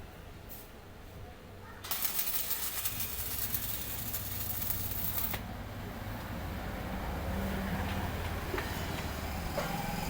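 Electric arc welding: the arc crackles and sizzles for about three seconds, starting about two seconds in and then stopping. A steady low hum runs underneath.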